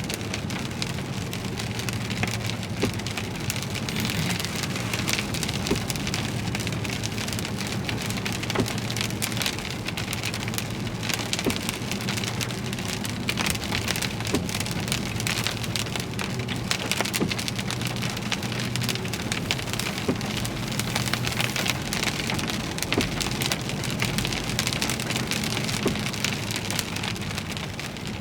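Heavy rain pelting a car, with many individual drops ticking, over the steady low hum of the vehicle driving through the thunderstorm.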